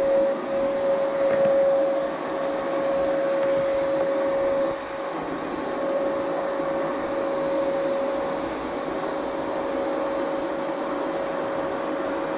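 A small electric motor running steadily, a constant whine over a hiss.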